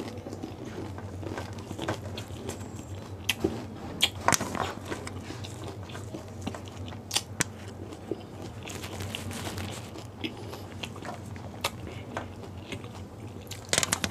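A person chewing and biting pani puri, with irregular sharp crunches of the crisp puri shells. A louder cluster of crunches comes near the end as another whole puri goes into the mouth.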